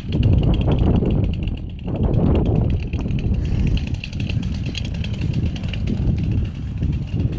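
Chainsaw engine running at low revs with an uneven, rising and falling level.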